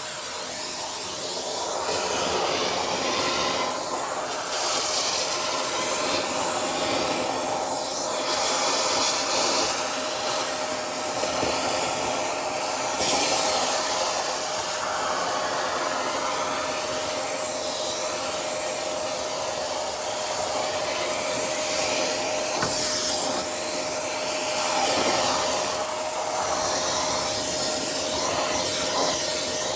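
A 2000-watt Hoover TCP2010020 electric vacuum cleaner running steadily with a constant whine, its sound swelling and easing every second or two as it works.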